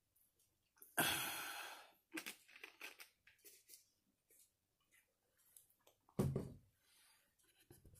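A loud breathy gasp just after a swig of cola, fading over about a second, then small rustling, crunching and chewing sounds of snack eating. Near the end there is a short, loud, low thump.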